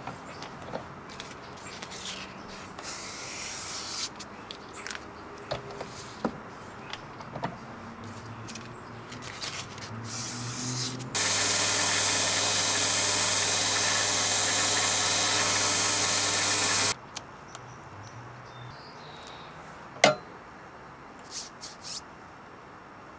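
Bench belt sander running steadily for about six seconds, starting and stopping abruptly, while a round steel knife-handle piece is held against the belt. Before it, light clicks and scraping of steel parts being handled; a single sharp click comes near the end.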